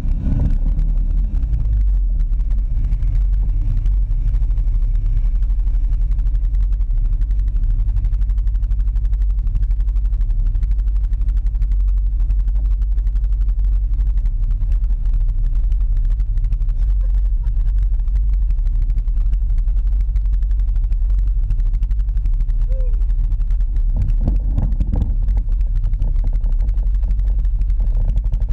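ATV engine idling steadily, heard close up from a camera on the machine's own front rack: a deep, even rumble.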